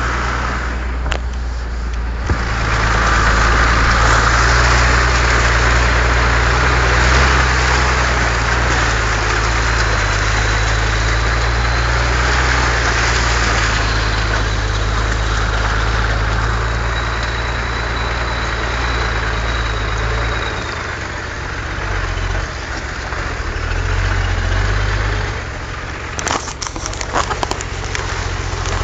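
Off-road vehicle's engine running with a steady low drone under a broad rush of noise. It eases off after about twenty seconds, and a few sharp knocks come near the end.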